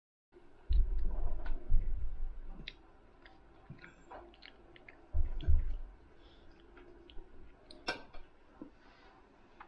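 Low bumps and thuds in two spells, with scattered small sharp clicks throughout and one louder click near the end.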